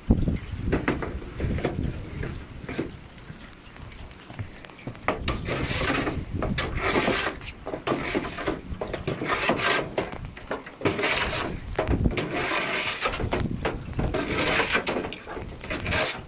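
A stiff brush scrubbing a wet roof surface in repeated scraping bouts, with wind rumbling on the microphone.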